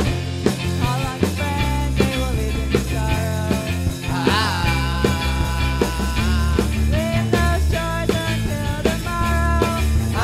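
Background rock music with a steady beat, bass and drums; a lead line bends and wavers in pitch about four seconds in.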